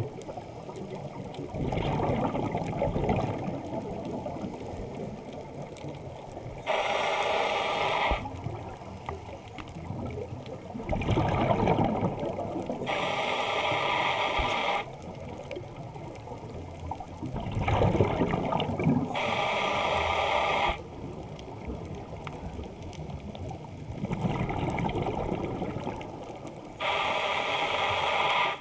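Scuba regulator breathing heard underwater: a steady hissing inhale through the demand valve alternates with a rumbling, bubbling exhale, about four breaths evenly paced several seconds apart.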